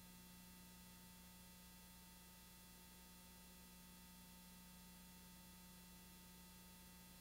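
Near silence: a faint, steady electrical hum over hiss, unchanging throughout, with no sound from the movements themselves.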